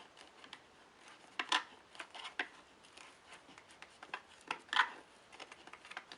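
Plastic parts of a single-serve coffee maker being handled, with a few light clicks and rubbing scrapes, the clearest about a second and a half in and near five seconds.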